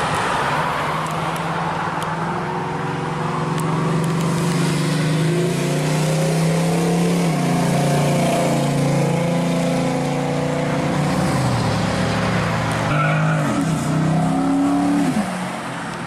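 Classic Chevrolet Nova's engine and exhaust pulling away and driving past. The note climbs and drops back several times as the car accelerates through the gears.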